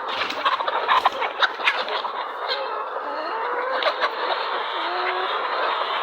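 A large flock of domestic poultry calling, many short overlapping calls at once with scattered sharp ticks among them.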